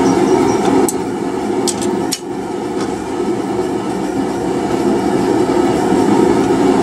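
Blacksmith's forge running with a steady rushing noise, with a few sharp metallic knocks about one to two seconds in.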